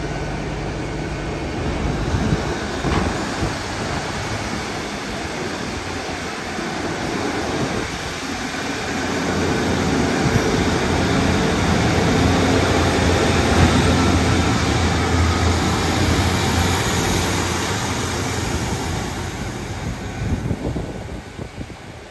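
Diesel train's engines running with a steady low hum. The sound grows louder from about a third of the way in and fades near the end.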